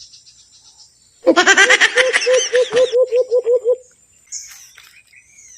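Hand call blown through cupped hands in imitation of the kulo-kulo/alimokon bird: a fast run of about a dozen low hoots, about four a second, lasting over two seconds. Faint bird chirps follow.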